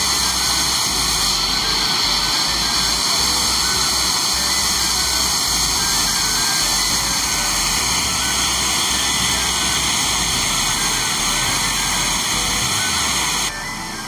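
Loud, steady rush of a waterfall pouring over rock ledges. It drops to a quieter rush near the end.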